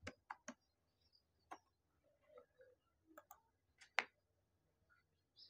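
A few faint, scattered clicks from a computer keyboard and mouse, with the sharpest click about four seconds in, over near silence.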